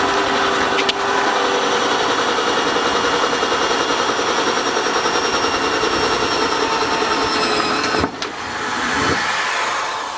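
Cordless drill boring through the thin sheet-steel body of a wheelbarrow with a twist bit, running steadily under load. It cuts out about eight seconds in, runs again briefly and then fades.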